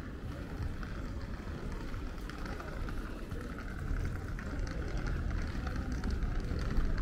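Steady ambient bustle of a covered shopping arcade: a low rumble with faint scattered clicks and no clear voices standing out.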